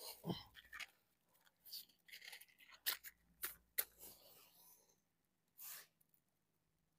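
Faint, intermittent crinkling and rustling of a crumpled wrapper being pushed in among dry twigs to lay a fire, with a few sharp clicks and small snaps in between.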